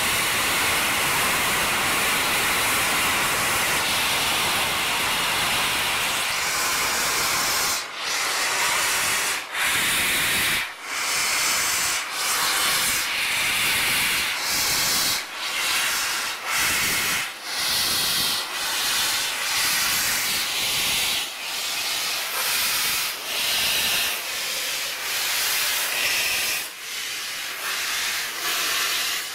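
Peppercorn A1 three-cylinder steam locomotive 60163 'Tornado' venting steam from its open cylinder drain cocks. A steady hiss for about the first eight seconds, which then breaks into slow, regular chuffs, roughly one a second, as the engine starts to move off.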